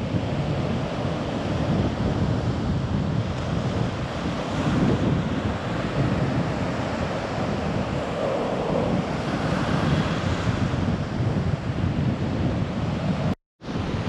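Caspian Sea surf breaking and washing up a flat sandy beach, a steady rushing of waves with wind buffeting the microphone. The sound cuts out completely for a moment near the end.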